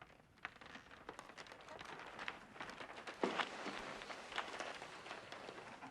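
Faint rustling with many small scattered clicks and a few soft knocks, the loudest about three seconds in, as of people shifting and moving about in a room.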